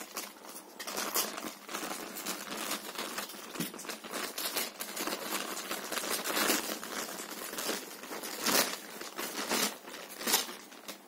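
Thin clear plastic packaging bag crinkling and crackling irregularly as it is slit with a utility knife and pulled open by hand.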